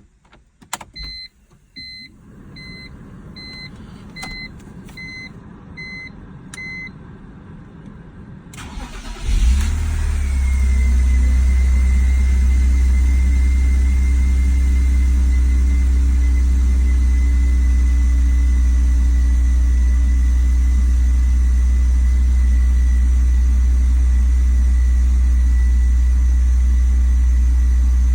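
About eight short electronic beeps from the car, then about 9 seconds in the BMW 330Ci's 3.0-litre straight-six is started and catches, settling into a steady loud idle with a thin whine over it. The car has a complaint of a high, bouncing idle and no power, and its MAF sensor is unplugged.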